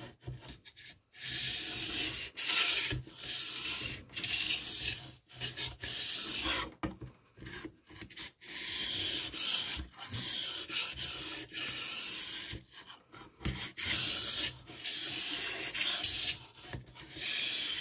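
Knife blade with a clip-on angle guide being stroked along a soaked blue whetstone (Parkside 2-in-1 sharpening stone): a scraping hiss on each stroke, repeated roughly once a second with short breaks between strokes.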